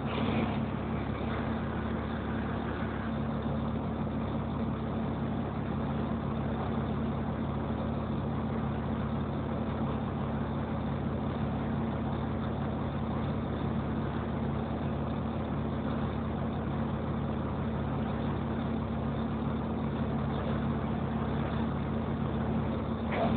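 Volvo B7TL double-decker bus's six-cylinder diesel engine running at a steady, even hum, heard from inside the lower saloon.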